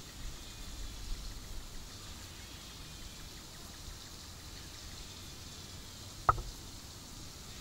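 Quiet outdoor ambience by a pond: a steady high hiss, with some low rumble in the first couple of seconds. A single sharp, very short sound stands out about six seconds in.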